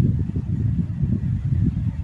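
Thunder rolling: a low, crackling rumble.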